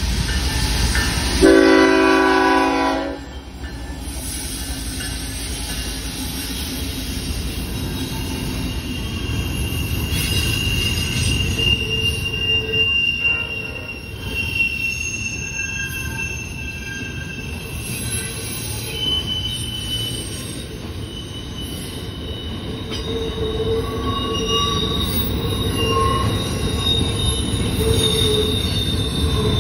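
A diesel freight locomotive sounds one short horn blast about a second and a half in. Then the train's double-stack container cars roll past with a steady rumble and wheel squeal, high squealing tones coming and going as the wheels take the curve.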